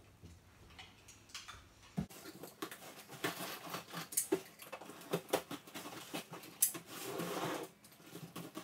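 Cardboard shipping boxes being cut and pried open by hand: a small knife scratching through packing tape, with taps, scrapes and rustles of cardboard, and a longer scrape about seven seconds in.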